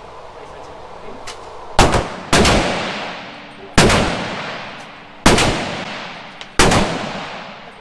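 Five pistol shots from a semi-automatic handgun, fired one at a time at uneven intervals of roughly one to one and a half seconds. Each shot is followed by a long echoing decay.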